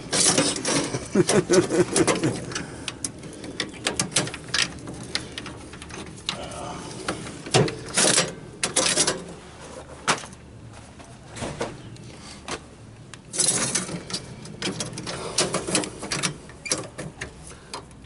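Irregular clicks, taps and scrapes of hand tools and metal parts being worked inside an open electrical meter base and breaker panel, with a couple of louder bursts of rustling noise.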